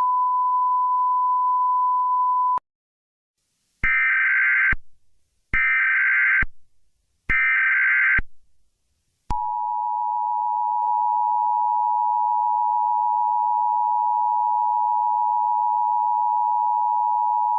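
Emergency Alert System tones: a single steady beep tone for about three seconds, then three short buzzy bursts of EAS header data, then the two-tone EAS attention signal starting about nine seconds in and holding steady to the end.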